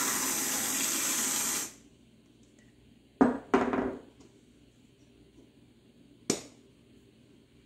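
Aerosol whipped-cream can spraying cream onto an iced coffee, a loud steady hiss that cuts off about two seconds in. A couple of knocks follow a second later, and a single sharp knock comes a few seconds after that.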